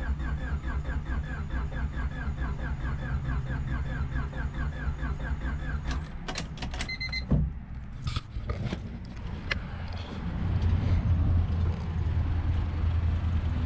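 Starter motor cranking the 2000 Honda Civic's turbocharged D16 engine over with an even pulsing rhythm of about four to five beats a second, without it firing: it is being spun with injectors unplugged to prime the oil pressure. The cranking stops about six seconds in, followed by a few clicks, a short run of chime beeps and then low rumbling noise.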